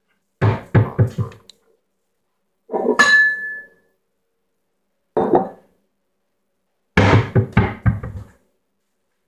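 Dishes and a glass bowl knocked and set down on a stone countertop close to the microphone: quick groups of knocks and clatters, with a glassy clink that rings briefly about three seconds in and a fast run of knocks near the end.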